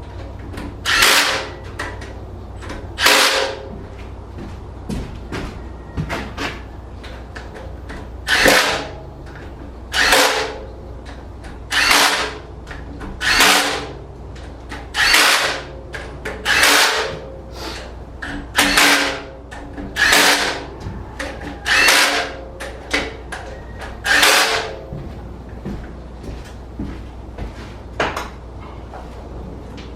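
Impact wrench run in short bursts, about a dozen of them one every second and a half to two seconds, running the cylinder-head stud nuts down on a small-block Ford in sequence before final torquing. The last few bursts, near the end, are weaker.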